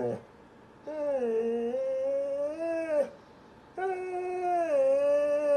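A dog howling in long drawn-out calls: the end of one call right at the start, then two calls of about two seconds each, each dipping in pitch and then holding steady.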